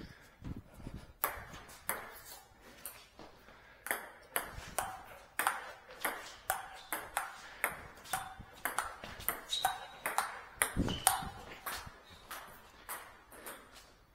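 Celluloid-type table tennis ball being hit back and forth in a rally: sharp clicks of ball on bat and table, about two a second, some with a brief ring. A duller thud comes about eleven seconds in.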